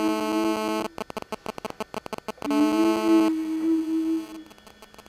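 A long, steady held note that breaks off about a second in amid crackles and clicks. It comes back with a slight upward slide about two and a half seconds in and stops near the end.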